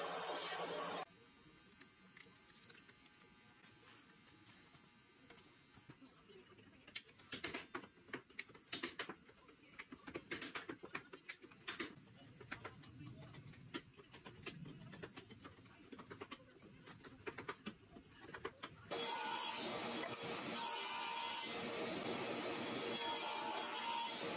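A power tool running, cut off abruptly about a second in. Then quiet, irregular clicks and scrapes of a small hand tool working on clamped walnut drawer parts. From near the end a table saw runs steadily and loudly.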